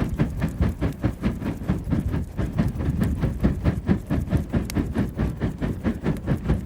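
Wood fire burning, a dense, unbroken run of crackles and pops over a low rushing rumble.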